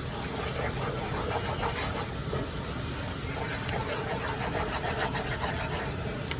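Curry powder and seasonings frying in a pot over medium heat: light, steady crackling over a steady low rumble.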